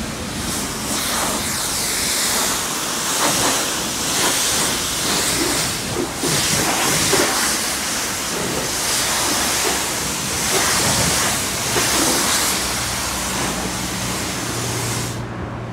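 Self-service car wash pressure wand spraying water onto a car's body: a loud, steady hissing spray that swells and eases as the jet moves, cutting off suddenly about fifteen seconds in.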